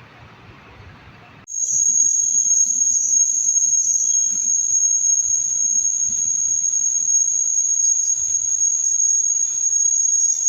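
Electric commuter train at a station platform giving off a steady, high-pitched electrical whine over a low rumble. The sound starts abruptly about a second and a half in.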